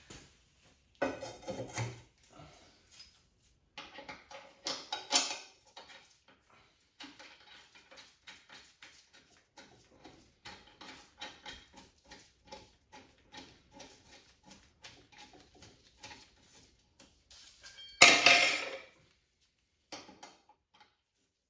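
Metal clinking and clattering of hand tools and parts being handled, with many small clicks and a loud clank about 18 seconds in.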